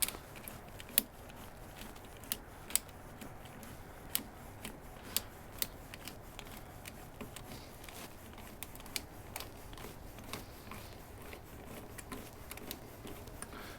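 Small worm-drive hose clamp being tightened around the UTV frame: a run of irregular sharp metal clicks and ticks, a few of them louder.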